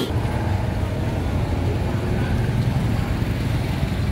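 Steady low rumble of street traffic, motor vehicles running close by, with people's voices faintly beneath it.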